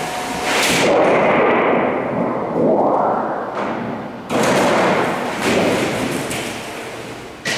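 A large 8-foot sheet of 24-gauge sheet metal flexing and wobbling as it is lifted and shifted on a folding machine, making swelling rumbles and rattles. It rises suddenly about four seconds in, and there is a sharp knock near the end.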